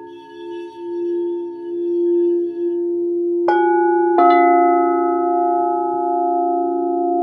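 Singing bowls ringing with several long, steady tones that swell and fade in slow waves. Two fresh strikes come about three and a half and four seconds in, and each rings on.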